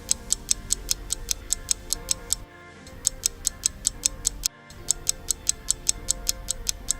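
Pop music backing track with a fast, even ticking on top, about five ticks a second, briefly dropping out twice.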